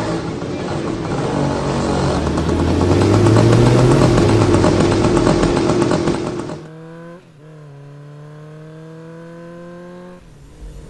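A motor vehicle engine revving up, rising in pitch, then cutting off abruptly about two-thirds of the way through. A quieter held tone follows, slowly rising in pitch, and stops just before the end.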